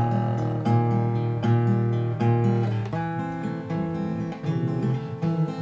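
Song with an acoustic guitar strumming chords in a steady rhythm, with no singing.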